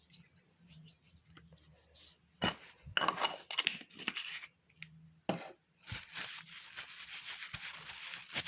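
Hands handling things: a few clicks and rustles, then a steady rustling hiss from about six seconds in.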